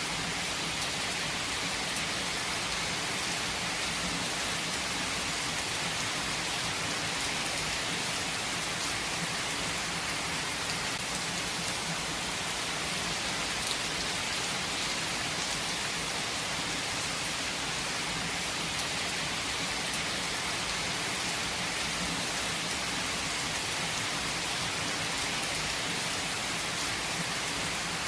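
Steady, even rainfall with drops pattering on surfaces.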